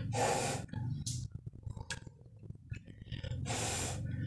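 A woman breathing heavily through the mouth: a long breath at the start and another near the end, with soft clicks of chewing in the quieter stretch between.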